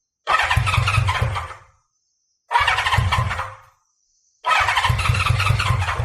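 Honda CB550F's inline four-cylinder engine being cranked by its electric starter in three short bursts, turning over without catching.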